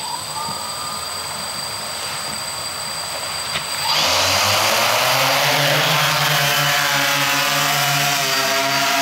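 Hexacopter drone's six electric motors and propellers spinning at idle after arming, with a faint rising whine near the start. About four seconds in the throttle goes up and the rotor noise jumps much louder into a steady whir as the craft lifts off.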